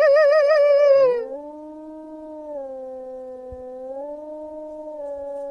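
Two wolves howling: a loud, high howl with a quick waver ends about a second in. A lower, long, steady howl takes over and holds, dipping slightly in pitch midway.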